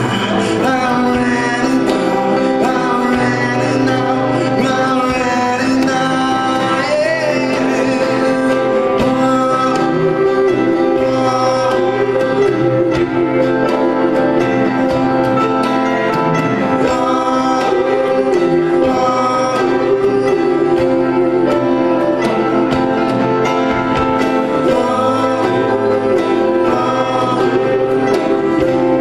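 Live band with acoustic guitar, cello, keyboard and drums playing a rock ballad, with a male lead singer and a female singer singing held, wavering notes over it.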